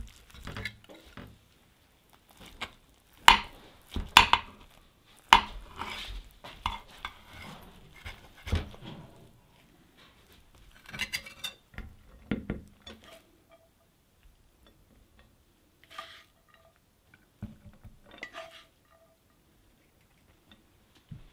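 Serving utensils scraping and clinking against a glass baking dish and ceramic plates as enchiladas are lifted out and served, then rice is spooned onto the plates. The clinks and scrapes come irregularly, loudest a few seconds in.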